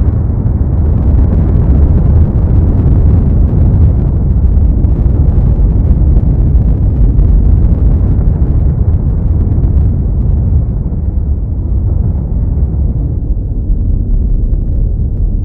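Thunder rolling in a long, deep, unbroken rumble; its higher edge slowly fades away over the last few seconds.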